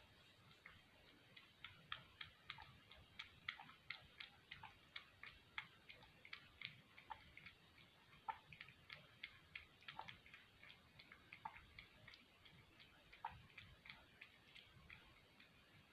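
A cat lapping milk: a run of quiet clicks at about three a second, starting a second or two in.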